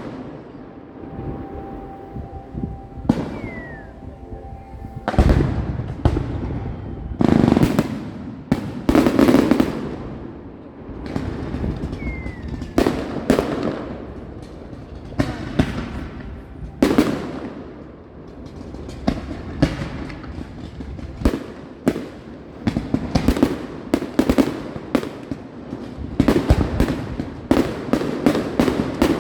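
Fireworks display: aerial shells bursting one after another with booming, echoing bangs and crackle, the bursts coming thicker near the end.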